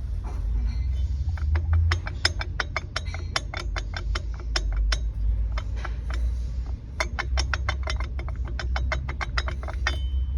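Polaris Xpedition UTV engine running with a rapid metallic clicking, about five clicks a second, that pauses for a second or two midway: the engine noise the owner is pointing out.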